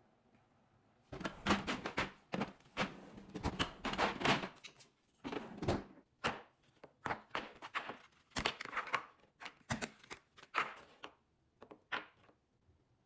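Irregular run of knocks, taps and short scraping swishes from kitchen containers and utensils being handled while detergent ingredients are mixed.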